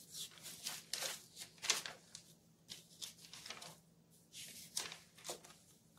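Paper pages in a ring binder being turned and brushed by hand: a series of short, uneven rustles and swishes. A faint steady low hum runs underneath.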